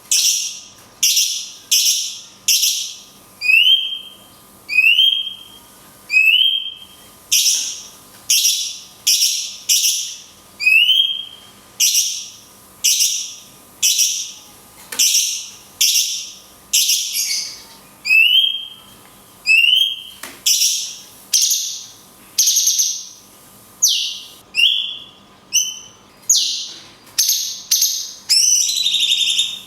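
Cucak cungkok bulbul singing, loud shrill whistled calls repeated about once a second, each followed by a short rising chirp, with brief natural pauses between. This is the long 'kunti' shot call style used as a masteran.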